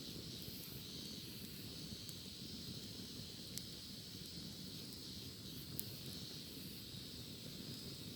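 Cicadas buzzing in a steady high chorus, with a few sharp crackles from a wood campfire, two of them louder about three and a half and six seconds in.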